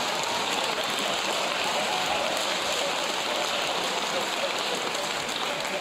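Theatre audience applauding, a steady wash of clapping that eases slightly near the end.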